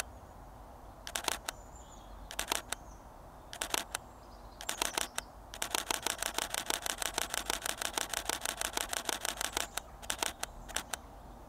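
Canon 80D DSLR shutter firing: single shots about every second and a bit, each a quick cluster of two or three clicks, then a rapid run of several clicks a second for about four seconds, then two more single shots near the end.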